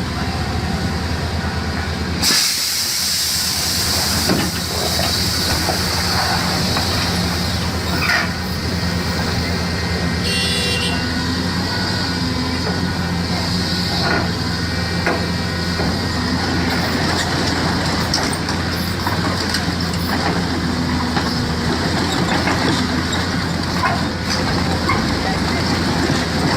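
A large engine running steadily, with a loud hiss that starts about two seconds in and a few faint clicks.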